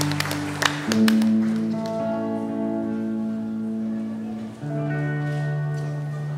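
Instrumental music of long, held chords that change about a second in and again past four seconds in, with clapping dying away in the first second.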